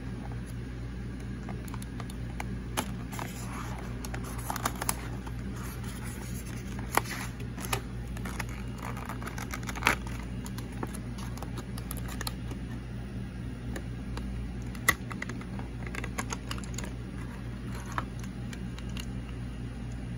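A clear plastic blister pack being pried open and handled by hand, crinkling and clicking with a few sharper snaps, over a steady low hum.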